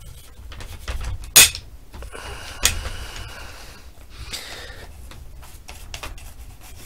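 Handling noise from a stripped AR-15 lower receiver being cleaned with a brush: two sharp clicks about a second and a half and two and a half seconds in, with softer rubbing and small ticks around them.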